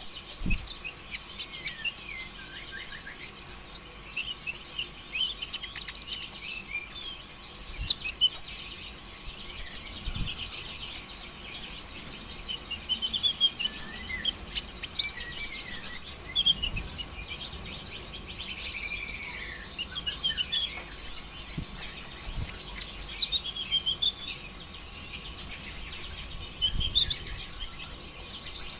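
Brown-throated sunbird (konin, kolibri ninja) singing a fast, unbroken stream of high chirps and trills, with a falling sweep about two-thirds of the way through. This is the continuous 'konslet', full-rolling song used as a lure to set other konin singing.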